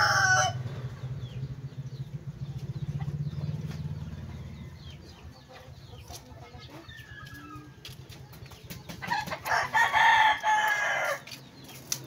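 Rooster crowing: the tail of one crow right at the start, then a second full crow about nine seconds in that lasts about two seconds.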